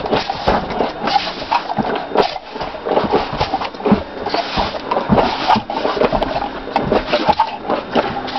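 A dog biting and mouthing the nozzle of an air pump's hose, with air hissing out in uneven gusts mixed with the dog's mouth and jaw noises and small knocks.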